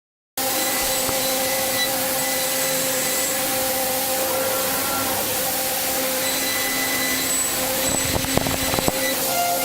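CNC machine running while machining an engine block: a steady hiss with several high whining tones, and a few sharp knocks about eight to nine seconds in.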